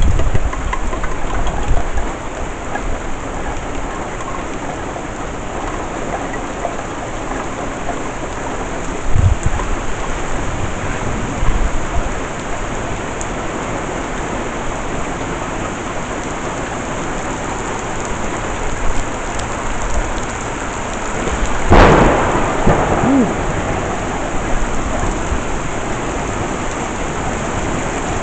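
Heavy rain falling steadily, with low rolls of thunder. About three-quarters of the way through, a loud clap of thunder breaks out and rumbles away.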